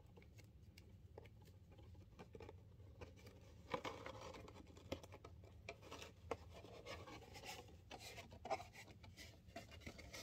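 Faint scratching, rubbing and small clicks of fingers working tape onto a cardboard cornstarch box, busier from about four seconds in.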